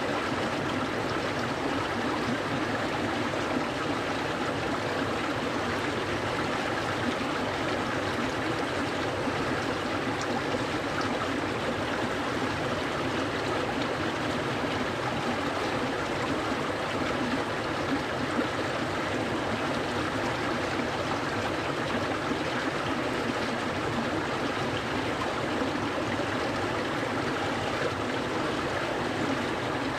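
A clear mountain stream flowing steadily over rocks, an even rushing and gurgling of water.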